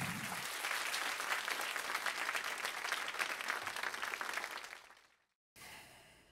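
Audience applauding, a dense run of many overlapping claps that fades out about five seconds in.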